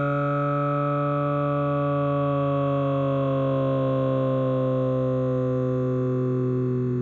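Background synthesizer music: sustained droning tones, some of them slowly falling in pitch.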